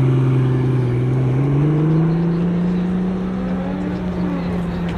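Pagani V12 running at low revs as the car pulls away. Its engine note rises in pitch about a second and a half in, then holds steady.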